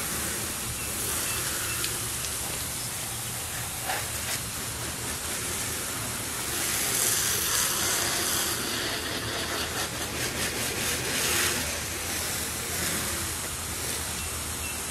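Garden hose spray nozzle hissing as water jets onto a boat hull and splashes off, rinsing off wax sealant. The hiss swells for a couple of seconds about halfway through.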